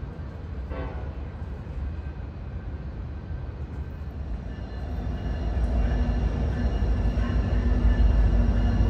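Approaching Amtrak California Zephyr passenger train with diesel locomotives: a low rumble with a steady engine hum that grows louder from about halfway through as the train comes closer.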